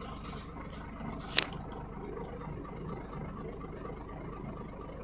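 Scania truck's diesel engine idling steadily, a low even rumble. A single sharp click about a second and a half in.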